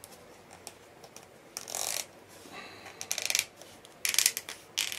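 A thin mahogany plank strip being pressed and worked by hand into a tight gap in a wooden model ship hull: about four short scraping rubs of wood on wood, the later ones coming closer together.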